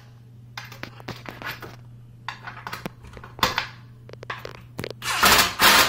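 Cordless impact driver driving a screw into a wooden bed leg: scattered clicks and short, light bursts over the first few seconds, then a loud run of the driver about five seconds in.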